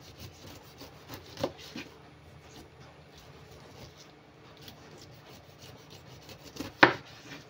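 Large kitchen knife cutting the rind off a whole pineapple, a quiet scraping and rasping of the blade through the skin. There is a sharp knock about a second and a half in and a louder one near the end, as the blade meets the wooden cutting board.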